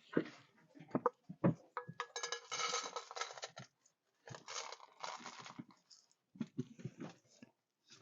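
Dry cat kibble rattling as it is scooped and poured into bowls, in two rushes of about a second and a half each, with a few knocks before them.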